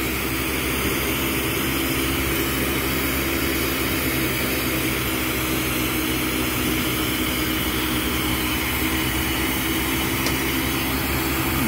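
Propane-oxygen glassworking torch burning with a steady hiss, with a steady low hum underneath.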